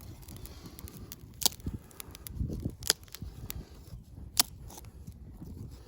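Small fire crackling, with a few sharp, separate pops standing out over a low crackle.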